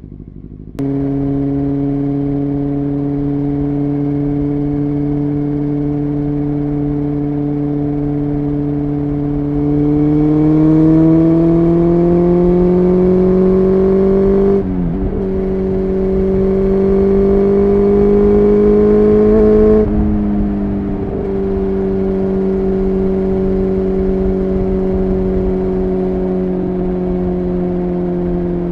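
Honda CBR600F3's inline-four engine running under way at a steady pitch, then revving up about ten seconds in, with a brief sharp dip at a gear change before rising again. Around twenty seconds in the revs drop back to a steady cruise.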